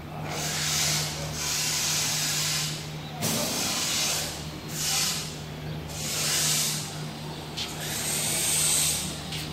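Repeated bursts of hissing, about six, each lasting half a second to a second and a half, over a steady low hum.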